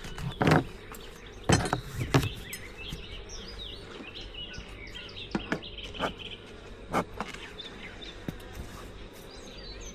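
Honeybees buzzing around open hives while small birds chirp, with several sharp knocks: three in the first two seconds and a few more in the middle.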